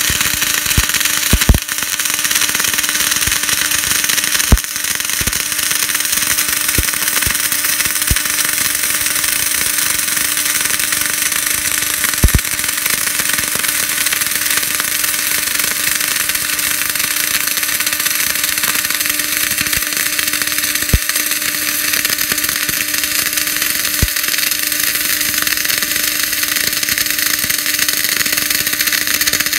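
MIG/MAG welding arc laying a fillet weld on a steel T-joint with 1.2 mm wire at about 250–270 A and 21–24 V: a steady hiss with a steady hum beneath it and a few sharp pops of spatter.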